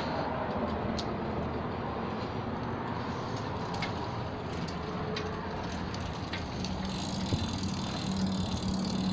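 Steady outdoor background noise, with faint footsteps on a concrete walkway about once a second. A low steady hum joins near the end.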